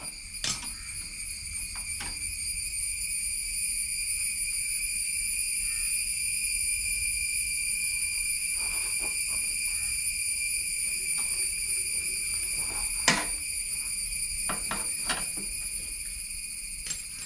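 A steady, high-pitched insect chorus that swells and fades again near the end. Over it come a few sharp metallic clicks and knocks from hand work on the scooter's engine, the loudest about thirteen seconds in.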